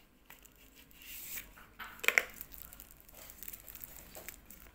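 Packaging being opened by hand: the drill-bit box slid open and a thin plastic bag rustling and crinkling, with two sharp snaps just after two seconds in.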